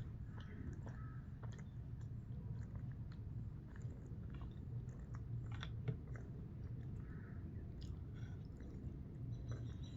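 A person chewing food, with soft, irregular mouth clicks and smacks, over a steady low hum.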